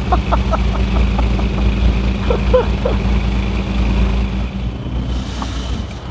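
Fishing boat's engine running under way: a steady low drone with a hum over it, against the rush of the wake.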